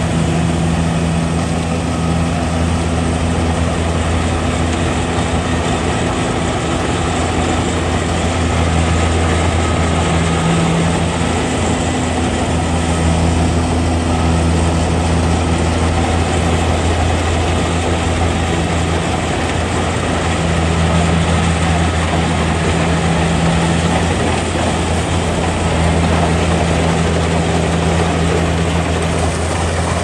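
Steady low mechanical hum at a constant pitch, with a rough noisy layer on top, swelling and easing slightly in loudness.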